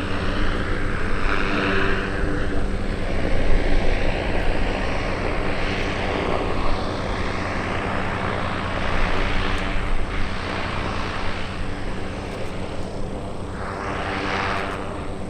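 Goodyear Zeppelin NT airship's propeller engines running steadily with a low hum, under a rushing noise that swells and fades several times.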